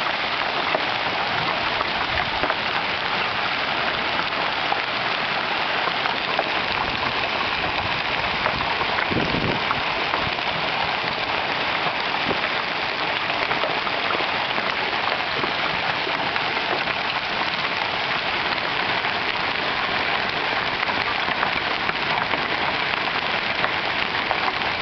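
Hail coming down hard and steadily: a dense, unbroken hiss of countless small stones pelting the ground, peppered with fine ticking impacts.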